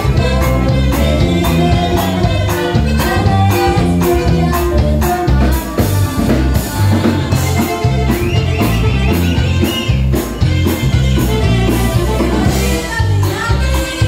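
Live norteño band with saxophone, accordion, bajo sexto, bass guitar and drums playing a dance number with a steady beat.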